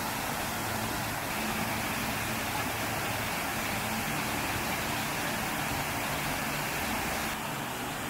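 Waterfall water rushing down a rock face in a steady, even roar. Near the end the sound drops slightly and softens into a smaller cascade tumbling over rocks.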